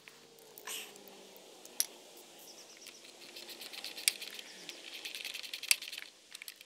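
Handling noises as a Stihl MS391 chainsaw, engine off, is fitted onto a homemade chainsaw mill's mounting bracket: a few sharp clicks and a run of light rattling and ticking of metal hardware.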